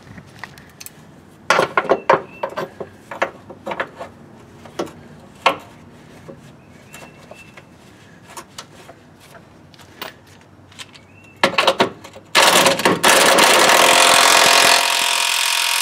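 Scattered metal clicks and knocks of the shock absorber's mounting hardware being handled and fitted, then, about twelve seconds in, an impact wrench hammers for about three seconds, running down the nut on the shock's upper mounting bolt.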